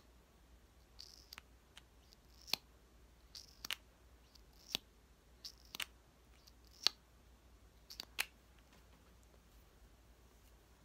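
ASMR mouth sounds made close to the microphone: about a dozen sharp, irregular mouth clicks and lip smacks, with a few soft hisses between them.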